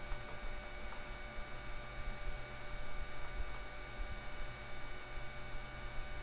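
Steady electrical mains hum with a faint hiss and several thin, steady high-pitched tones underneath.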